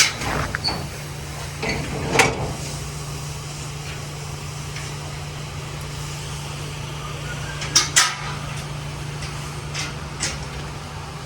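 A few sharp metal clanks and knocks, like a barn gate being opened and handled, over a steady low mechanical hum. The clanks come at the start, about two seconds in, twice close together about eight seconds in, and once more near ten seconds.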